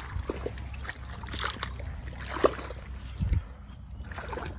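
Faint splashing and sloshing of shallow irrigation water and mud in a flooded furrow as Napier grass cuttings are pushed in by hand, with a brief low thump a little past three seconds in.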